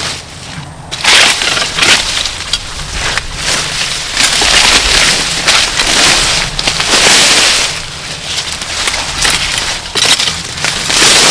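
Dry sugarcane leaves crackling and tearing as they are stripped down the stalks with a hand-held spring-metal cane stripper. The strokes come one after another with brief pauses between them.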